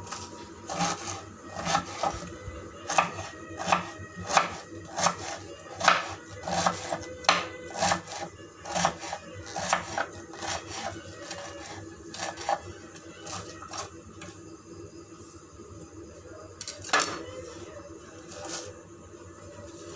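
A spoon knocking and scraping against a pan, about two strokes a second, as cabbage is mixed into the spiced samosa filling; the strokes thin out later, with one louder knock near the end.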